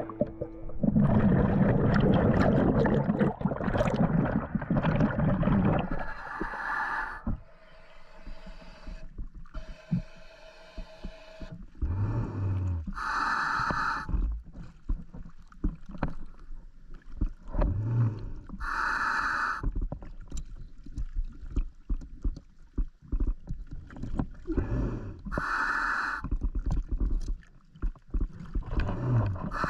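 Scuba diver breathing through a regulator underwater: a long rush of exhaled bubbles, then a regular cycle about every six seconds of a low rising hum and a hissing breath through the regulator.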